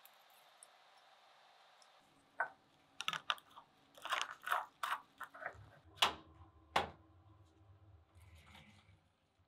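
Close handling sounds of lab glass and plastic. Two seconds of faint hiss, then a run of crackly clicks and scrapes as a plastic screw cap is twisted on a glass bottle. Then a low hum with two sharp clicks.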